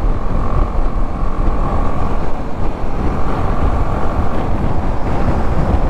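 Riding noise of a BMW G310 GS single-cylinder motorcycle at road speed: wind buffeting the microphone over the engine and tyre noise, with a faint steady whine in the first two seconds.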